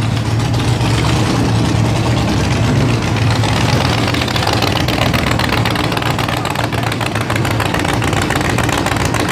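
Bizzarrini sports racer's V8 engine idling with a steady low beat as the car rolls slowly forward.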